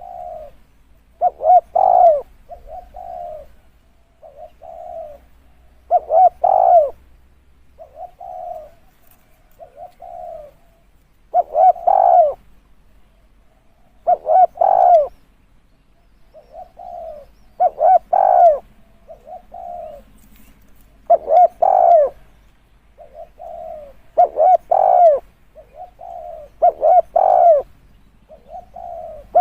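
Spotted dove cooing in a repeated phrase of several low coos, with the loudest phrase coming back about every three seconds. This is a call used to lure wild doves to a decoy bird.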